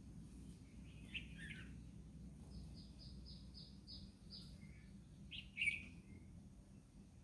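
Faint birds chirping over a low steady background hum: a brief call about a second in, a quick run of about seven short high notes in the middle, and a louder chirp about five and a half seconds in.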